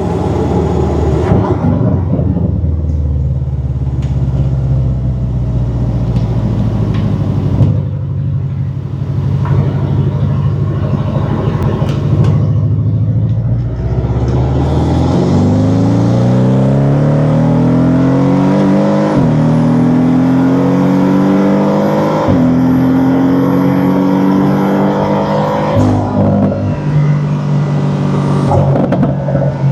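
Porsche 718 Cayman's turbocharged flat-four, fitted with an aftermarket turbo inlet pipe, running steadily at a cruise. About halfway through it accelerates hard: the engine pitch climbs three times, dropping at each upshift.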